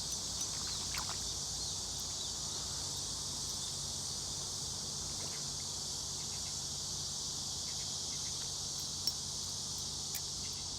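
Steady high-pitched chorus of summer insects, with a brief click about nine seconds in.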